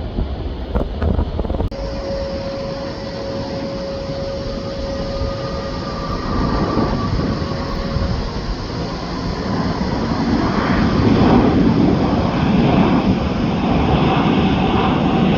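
Jet airliner engines: a steady whine, then a broad roar that swells from about ten seconds in and stays loud as the aircraft passes.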